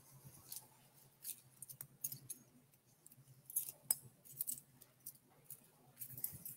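Faint scattered light clicks and rustles, a dozen or so irregular ticks, over a steady low hum.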